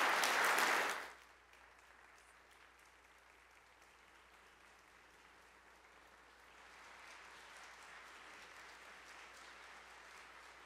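Congregation applauding at the end of a sermon. The clapping is loud at first, drops sharply to a faint level about a second in, and swells slightly again a few seconds later.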